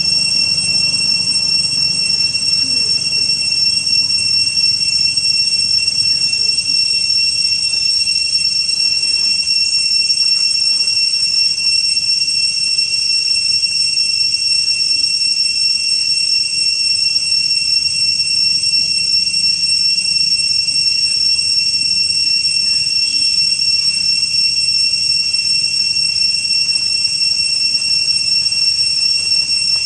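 Cicadas droning: one steady, high-pitched tone held without a break.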